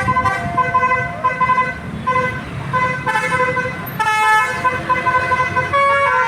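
Bus 'telolet' horn, a multi-tone musical air horn, playing a quick tune of stepping notes over a low rumble.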